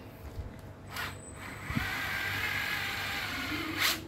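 Small motion-controlled (Gyro) cordless screwdriver: a click about a second in, then its motor runs with a steady whine for about two seconds and stops with a click near the end.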